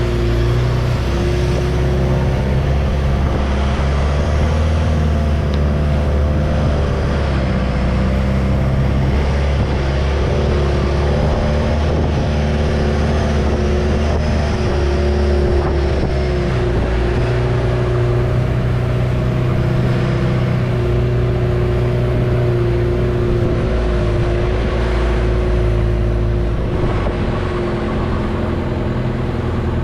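Long-tail boat's engine running steadily under way, holding an even pitch, with a slight drop in level near the end.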